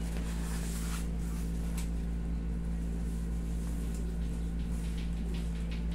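Steady low hum, with a few faint soft clicks and rustles.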